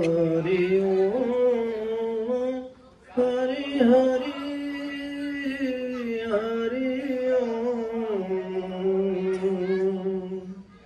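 A man's voice singing the opening of a devotional bhajan: long, drawn-out notes that waver and bend slowly in pitch, with a short pause for breath about three seconds in.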